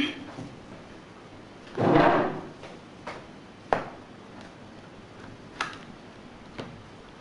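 HP Pavilion dv5 notebook being handled during disassembly: a short sliding scrape about two seconds in, the loudest sound, and a few sharp clicks and knocks around it.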